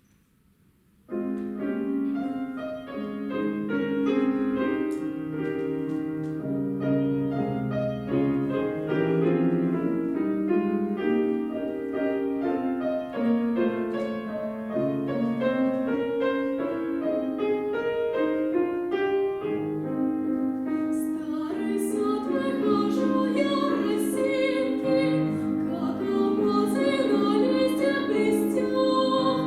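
Piano starting to play about a second in, after near silence. About two-thirds of the way through, a female voice joins it, singing in a classical style.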